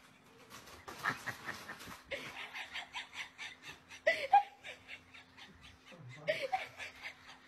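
A person laughing in quick repeated bursts, with two short pitched cries about four and six seconds in.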